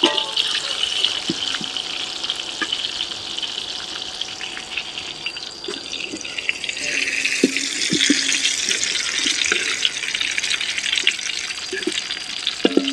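Red chilies, shallots and garlic with a block of shrimp paste sizzling in hot oil in a steel wok. A few knocks come from the metal spatula and slotted skimmer against the wok. The sizzle eases a little mid-way and picks up again about seven seconds in.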